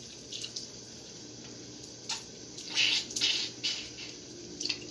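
Kitchen tap running steadily into a sink, with a few short, loud bursts, the loudest about three seconds in, as air is blown by mouth through the clogged body of a Nelson tractor lawn sprinkler to force the dirt out.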